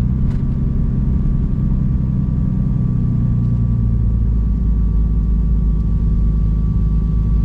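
Turbocharged Barra inline-six in a VL Commodore, heard from inside the cabin, droning steadily while cruising at low speed behind a pace car on a wet track. A thin, steady high whine sits over the low engine note.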